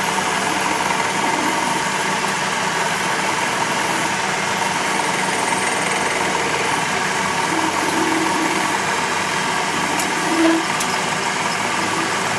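Metal lathe running steadily while its cutting tool turns down a steel truck input shaft, peeling off curling chips.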